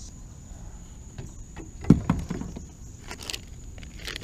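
Handling noises and short hollow knocks on a plastic sit-on-top kayak's deck as gear is moved about, the loudest knock about two seconds in.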